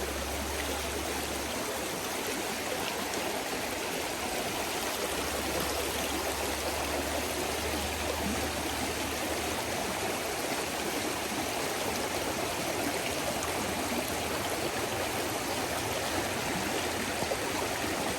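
Trout stream water flowing, a steady even rush.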